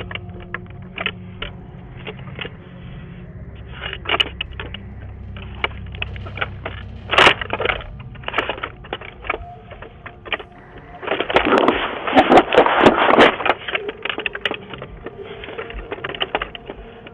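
Repeated knocking, banging and rattling at a house's front door, picked up by a doorbell camera's microphone, with a dense stretch of loud banging a little past the middle.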